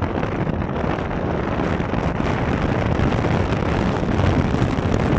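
Wind rushing over the microphone of a moving vehicle, mixed with a steady engine and road noise.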